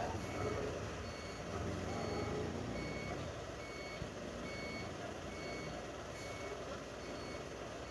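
Garbage truck's back-up alarm beeping steadily, about three beeps every two seconds, over the low running of the truck's engine.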